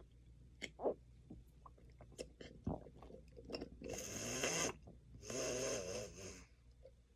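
A person swallowing pills with sips of water: small mouth clicks and gulps, then two long noisy throat sounds of about a second each, about four and five and a half seconds in, the second with a wavering voiced edge. The pills have stuck in the throat and she nearly gags.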